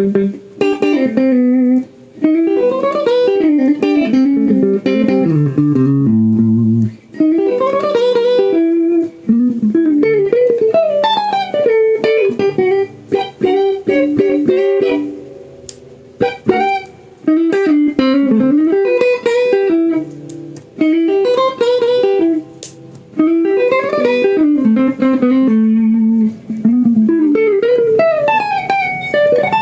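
Guitar played solo in quick plucked melodic runs and phrases, with short pauses between them and a descending run about six seconds in.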